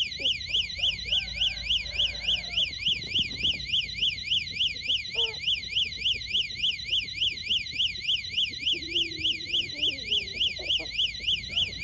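Electronic alarm sounding during its routine test: a rapid warbling tone that sweeps up and down about two and a half times a second. Faint voices underneath.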